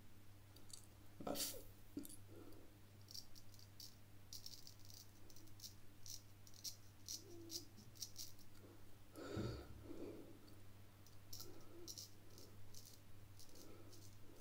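Drew Dick 8/8 smiling-blade straight razor scraping through lather and stubble: a faint, irregular crackle of short scratchy ticks, with two louder rustles about a second in and about nine seconds in, over a faint steady low hum.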